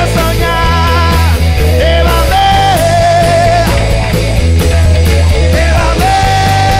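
Blues-rock band playing an instrumental passage: a lead electric guitar holds and bends notes over bass guitar and drums.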